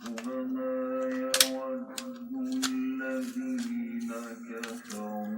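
A melodic voice holding long, drawn-out notes that shift slightly in pitch, like chanting. Several sharp clicks of hard parts being handled come through it.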